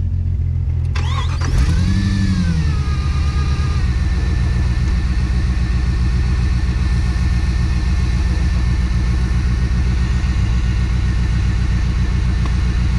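Off-road 4x4's engine picks up revs about a second and a half in, its pitch rising and falling, then settles into steady running.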